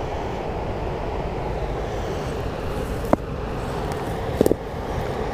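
A steady low rushing noise, with a sharp click about three seconds in and a quick run of three knocks a second or so later as a spinning rod and reel are handled.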